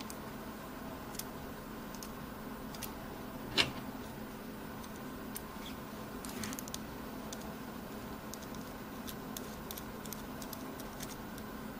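Small metal hardware handled in the fingers: a steel T-plate, bolt and plastic screen-door roller being fitted together, giving scattered light clicks and clinks, with one sharper clink about three and a half seconds in. A steady low hum runs underneath.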